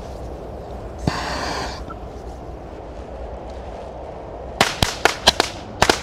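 A bundle of small firecrackers going off in a rapid string: about ten sharp bangs in a second and a half, starting near the end. A brief hiss about a second in comes before them.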